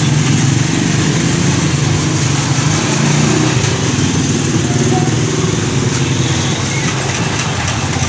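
Yamada 7 HP single-cylinder engine for a one-bagger concrete mixer running steadily on its first break-in run, its level easing slightly near the end.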